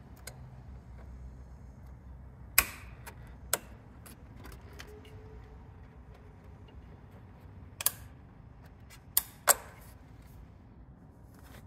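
Sharp metallic clicks and clinks, about five of them at irregular intervals, from a spring hose clamp being worked onto a radiator hose by hand. There is quiet handling noise in between.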